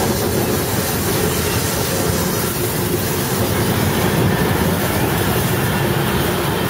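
Slow train of old railroad cars (wooden caboose, tank car, boxcar) rolling past close by, its steel wheels running steadily on the rails.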